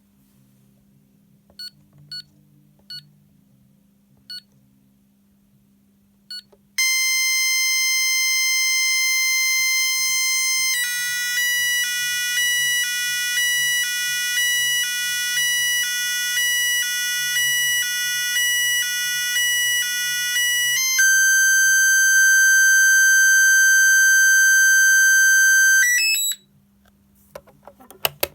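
Menvier TS690 intruder alarm system: a few short keypad beeps, then a loud steady electronic tone. It switches to a two-tone alarm warble alternating between two pitches, then to a lower steady tone that cuts off suddenly, followed by a couple of faint clicks.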